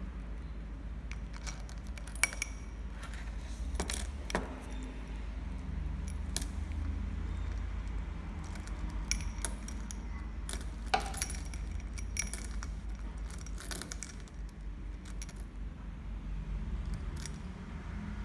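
Coins clinking against each other and the glass bowl as a sun conure picks through them with its beak: irregular sharp clinks, a few louder ones standing out.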